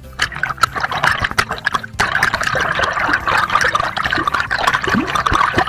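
Sea water sloshing and bubbling around a camera dipped below the surface, a dense crackle of bubbles that grows louder and steadier about two seconds in as the camera goes fully under.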